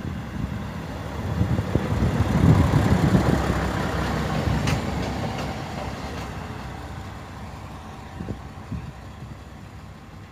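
A train going past: its low running rumble swells to a peak two or three seconds in, then slowly fades away.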